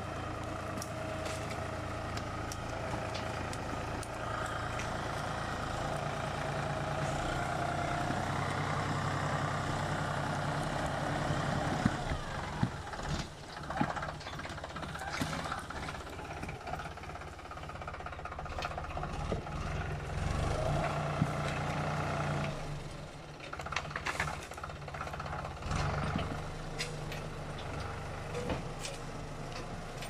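Başak farm tractor's diesel engine running as it tows a loaded wood trailer over rough, brush-covered ground, working harder in two long spells. Sharp knocks and cracks come in a cluster about halfway through and again later.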